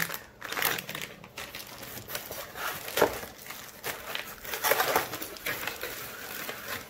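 A plastic bag of hardware crinkling and a cardboard packing insert rustling and scraping as they are handled, in a string of short rustles with a sharper knock about three seconds in.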